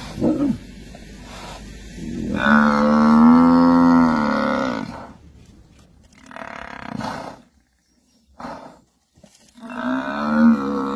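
Cape buffalo bellowing in distress under a lion attack: a long, loud bellow a couple of seconds in, a shorter, fainter call midway, and another long bellow starting near the end.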